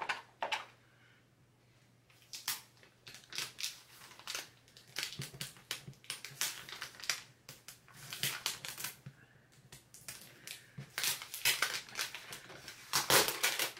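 Clear plastic adhesive sheet and its peeled-off backing film crinkling and crackling as hands smooth it down over the jigsaw puzzle. Irregular crackles and rustles, starting about two seconds in.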